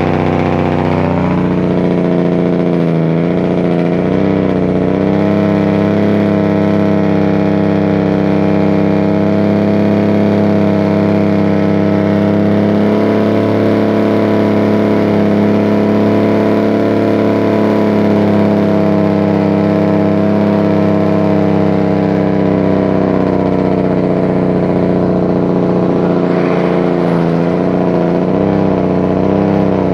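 Heavy truck's diesel engine running on its engine brake, holding the loaded truck back on a steep downhill grade. A loud, steady sound; its pitch climbs briefly about a second in, then holds level.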